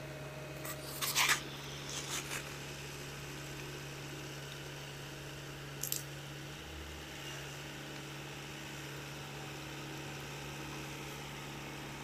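SDLG compact crawler excavator's diesel engine running steadily as a low hum heard from a distance, with a few brief crackling snaps about one, two and six seconds in.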